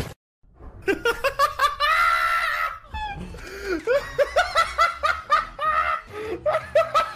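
A person laughing hard in repeated high-pitched fits, breaking off briefly about six seconds in.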